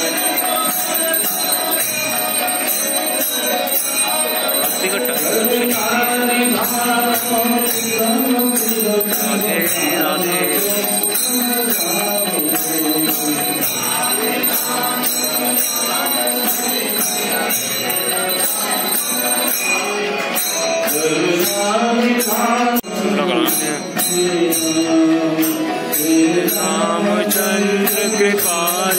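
Devotional chanting in kirtan style, a sung mantra with melodic lines that rise and fall, over jingling metal percussion keeping a steady beat. The sound dips briefly about three-quarters of the way through.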